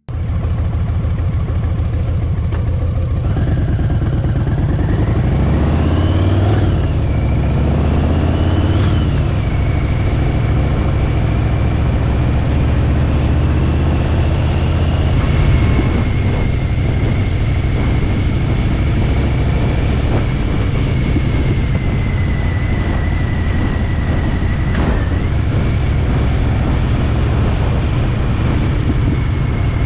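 Harley-Davidson Fat Bob's V-twin engine pulling up through two gears, the pitch rising and dropping at each shift, then running at a steady speed.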